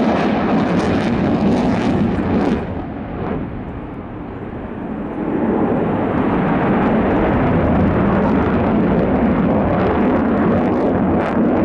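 Loud jet noise from a Sukhoi Su-27 flying a display, its twin Saturn AL-31F turbofans with afterburners lit. The noise drops away about two and a half seconds in and builds back up about five seconds in.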